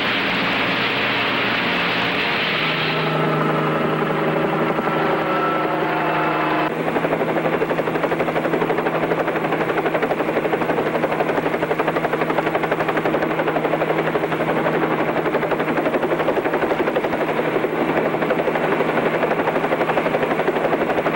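Music with sustained chords ends abruptly about a third of the way in, giving way to a helicopter in flight: a steady, fast chatter of rotor and engine.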